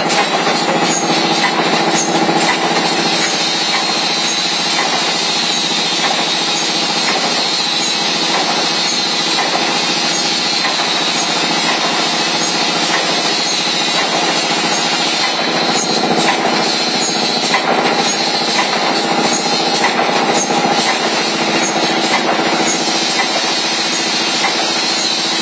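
Automatic bag spout welding machine running: a steady, continuous mechanical noise with a constant hum and no clear separate strokes.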